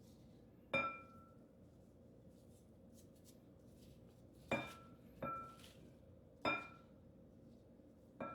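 A bowl clinking five times, each a short ringing knock, as sliced peppers and onion are mixed with seasoning in it.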